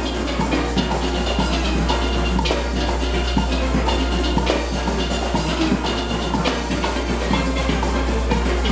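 Full steel orchestra playing a calypso: many steelpans struck together in chords and runs, with drums beneath.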